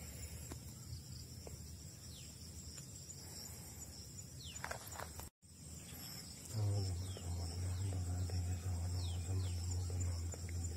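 Insects chirring in a steady, high-pitched chorus, with a low rumble underneath that grows louder about six and a half seconds in; the sound drops out for an instant near the middle.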